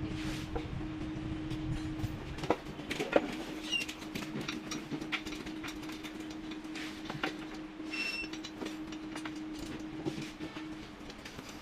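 Scattered clicks and knocks of metal stand parts being handled and fitted together, with two brief high rings, over a steady low hum.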